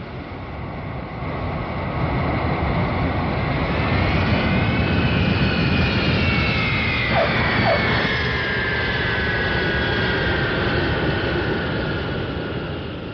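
Jet aircraft passing overhead: a roar with a high whine that swells towards the middle, the whine's pitch rising then sliding down, and fading near the end.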